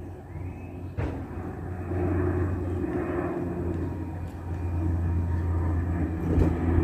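De Havilland Canada Dash 8 Q300 turboprop airliner climbing out after takeoff, its steady propeller and engine drone growing louder as it approaches. A single sharp knock about a second in.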